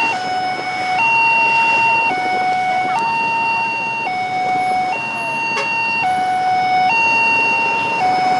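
Two-tone hi-lo emergency vehicle siren, switching between a higher and a lower note about once a second, over steady road noise.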